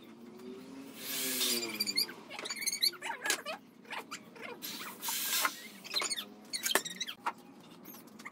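Chicks peeping in short high chirps, with two brief bursts from a cordless drill, about a second in and about five seconds in.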